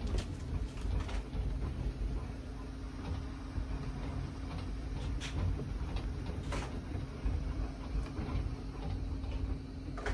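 A low rumble as a room shakes in an earthquake, with scattered creaks and clicks from its fittings over a steady hum. Two sharper knocks come about five and six and a half seconds in.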